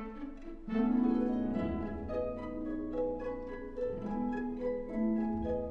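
Orchestral music: a quick run of plucked string notes over held string tones, with a deep bass line entering under it.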